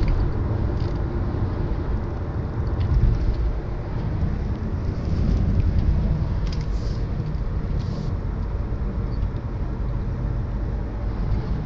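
Strong gusty wind in a sand storm, buffeting the microphone with a deep rumble that swells and eases from gust to gust.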